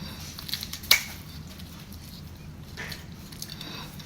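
A few sharp clicks of utensils against dishes, one loud click about a second in, over a steady low hum.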